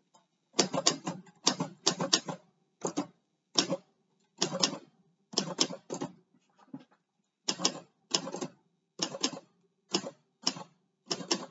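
Manual portable typewriter, which the owner takes for an Olympia De Luxe SM, being typed on. The type bars strike the paper one key at a time at an unhurried, uneven pace, about two a second, some keys in quick pairs.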